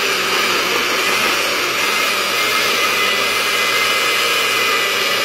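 Personal bullet-style blender motor running at full speed with a steady whine, held on by pressing down the cup, pureeing grilled tomatoes, onion and jalapeño into a liquid salsa. It cuts off suddenly near the end as the cup is released.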